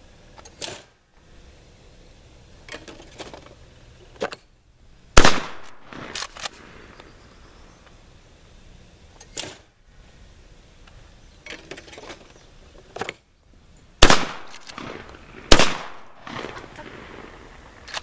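Three shots from a Benelli Nova 12-gauge pump shotgun, one about five seconds in and the last two about a second and a half apart near the end, each trailing off briefly. Quieter clicks and clacks come in between, as the pump action is worked.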